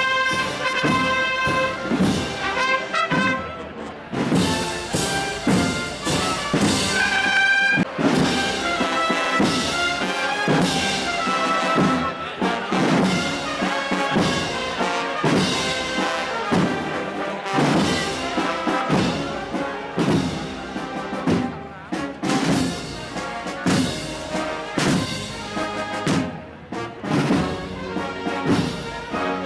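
Brass band playing a Holy Week processional march: trumpets and trombones hold long notes over a steady drum beat.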